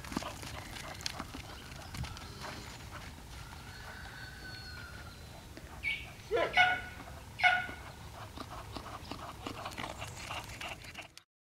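Dog trotting and running on dry dirt, its paws patting faintly. A few short, high-pitched calls come about six to seven and a half seconds in.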